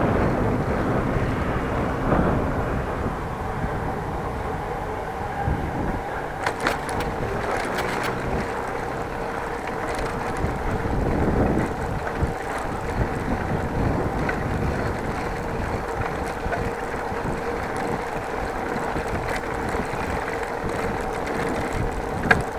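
Wind on the microphone and the rolling noise of a bicycle on the move, with a steady hum underneath and a few sharp clicks or rattles about six to eight seconds in.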